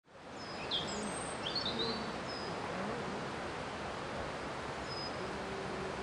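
Birds calling over a steady outdoor hiss, with a flurry of short high chirps and a few lower calls in the first couple of seconds, then a single short high note about five seconds in.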